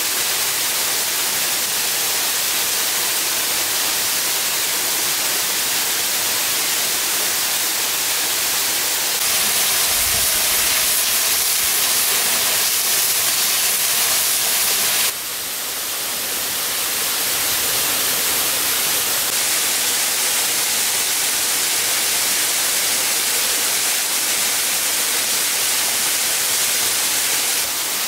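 Steady rushing noise of a waterfall, a constant hiss that shifts slightly in level about a third of the way in and again about halfway through.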